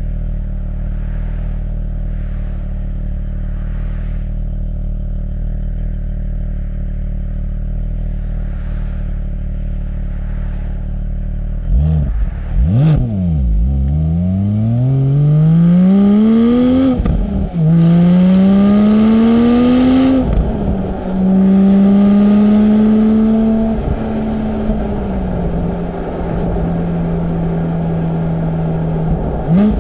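Porsche 718 Spyder's naturally aspirated 4.0-litre flat-six through its sports exhaust, first running steadily at low revs. About twelve seconds in it gives a quick rev, then the car accelerates hard: the pitch climbs through two gears with an upshift after each pull. It then settles into a steady, louder cruise.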